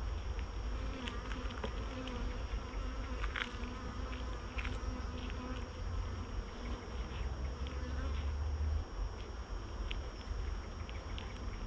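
Honeybees buzzing around an open hive, with one bee's hum holding close by for several seconds. A low rumble runs underneath, and there are scattered light clicks as the wooden frames are handled.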